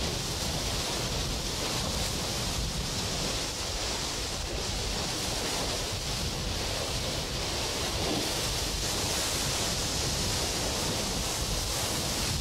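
Steady rush of sea surf washing against rocks.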